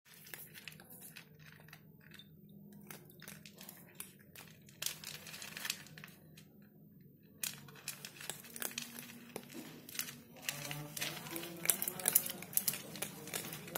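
An otter and a cat crunching dry kibble from a metal tray: irregular sharp crunches and clicks, busiest in the second half.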